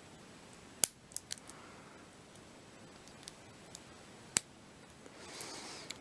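Yale Y121 padlock being single-pin picked: a few sharp small metal clicks from the pick and pin tumblers, the loudest about a second in and another near four and a half seconds. They are the sound of pins setting at the shear line under tension; the picker felt three distinct sets.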